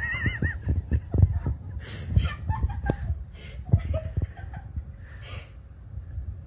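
A person laughing off-camera in breathy snickers and chuckles, with a brief high wavering squeal at the very start; the laughter fades out over the second half.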